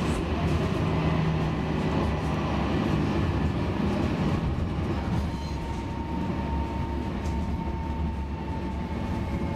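Inside an A32 tram under way: the steady rumble of wheels on the rails and the car body, with a low hum early on and a thin steady whine coming in about halfway.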